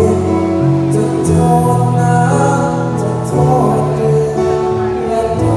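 Live band playing a slow song, with held chords over a moving bass line and light cymbal strokes.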